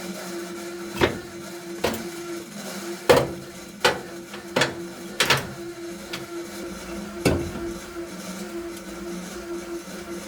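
A handful of sharp, irregular knocks and clicks, like metal parts or tools being handled, over a steady hum.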